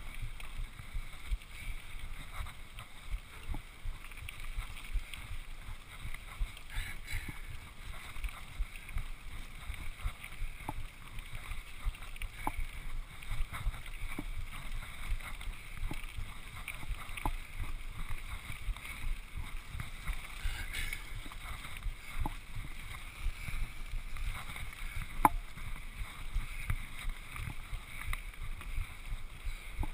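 Norco Revolver 9.2 HT hardtail mountain bike rolling over a gravel and dirt trail: a steady rumble of wind on the camera microphone and tyres on the ground, with frequent small clicks and rattles from the bike over the bumps.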